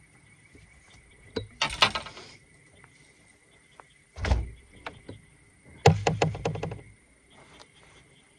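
Gear being handled on a bass boat's deck: a clatter near two seconds in, a hollow thump about four seconds in, and a quick run of rattling clicks around six seconds.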